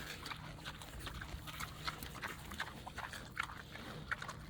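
Farm animals eating treats: faint, irregular clicks and taps of pecking and chewing.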